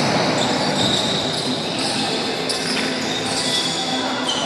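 Din of a basketball game in a large echoing gym: players running on the hard court and a basketball bouncing.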